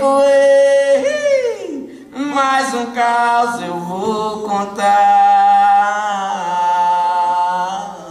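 A man singing long held notes live on stage, with a downward slide in pitch about a second in.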